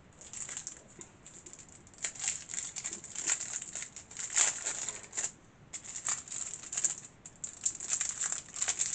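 Clear plastic packaging crinkling and rustling in quick irregular crackles as it is handled and pulled off a die-cutting plate, with short pauses now and then.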